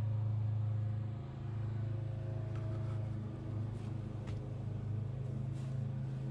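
Haldex Gen 4 coupling's electric precharge pump running with a steady hum, switched on through a diagnostic output test. A few faint ticks sound over it.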